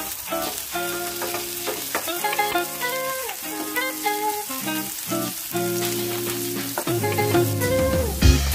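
Paneer cubes sizzling as they fry in hot oil in a nonstick pan, with a spatula stirring them, over background music with held guitar-like notes.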